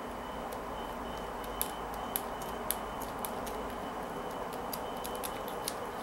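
Small scissors snipping the string of a beaded kandi panel: a scattering of sharp, irregular clicks over a steady background hum.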